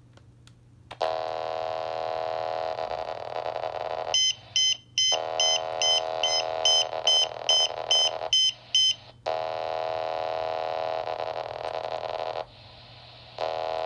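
RadioShack 27.255 MHz pager receiver beeping about a dozen times in quick succession, roughly three high beeps a second, as it takes in a page. Under it a steady buzzing data tone starts about a second in and drops out briefly a few times.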